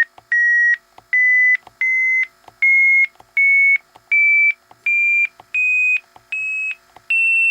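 Orion TI-84 Plus talking graphing calculator sounding its trace-mode tones: a string of about ten short beeps, one every three-quarters of a second, each a step higher in pitch than the last. The rising pitch sounds the graph's Y value climbing as the trace cursor steps along X.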